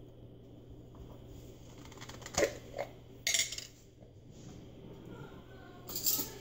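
Quiet kitchen with a steady low hum, a few short clinks or knocks about two and three seconds in, and a man's voice calling the dog from another room near the end.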